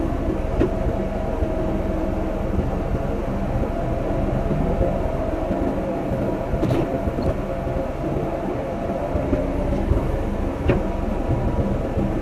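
Excavator's diesel engine running steadily under working load, with a few sharp metallic knocks over the rumble.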